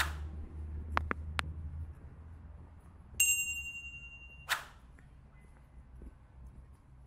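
Subscribe-button animation sound effects: a whoosh, then three quick mouse clicks about a second in, a bell ding a little after three seconds that rings away, and a second short whoosh. A low rumble of city traffic fades out during the first two seconds.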